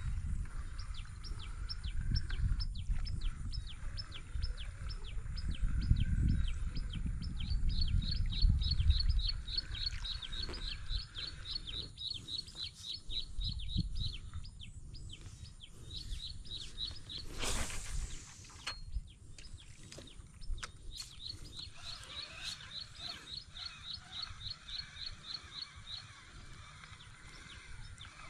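A bird calling in long series of short, evenly spaced high chirps, several a second, with a pause in the middle and a second run later. Low rumbling during the first part and a brief rushing noise partway through.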